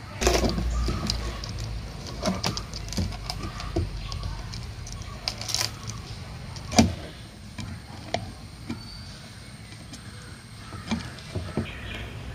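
Small metal chain clinking as it is handled and fastened with pliers: scattered light clicks and jingles of links and pliers on the ring, the sharpest click about seven seconds in.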